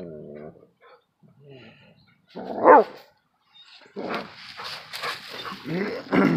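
A dog barking and whining, with one short, loud bark about two and a half seconds in, and more short calls near the end.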